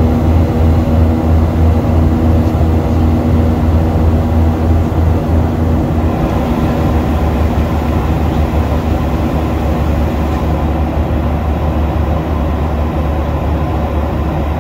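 Steady cabin noise of a Boeing 737-800 in flight: a deep, even rumble with a rushing hiss over it.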